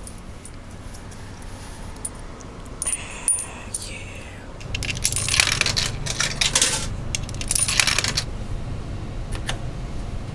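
Coins clinking as they come out of a pocket, then fed into a coin-operated Coca-Cola vending machine and rattling down through its coin mechanism in two bursts, with a single click near the end.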